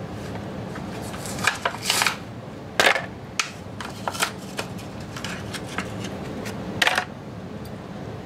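A die-cast toy car's retail packaging being opened by hand: irregular crinkles, rips and clicks, the sharpest about two, three and seven seconds in.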